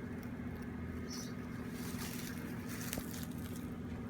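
Honeybees buzzing: a steady, even drone from an opened package of bees, with a faint click about three seconds in.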